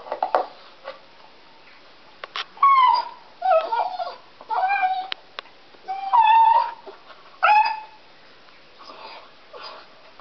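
Deaf dog crying while biting on a wooden log: a series of short, high whining cries that bend in pitch, about five loud ones in the middle, with a few sharp clicks among them and fainter cries near the end. The dog is deaf and cannot hear its own crying.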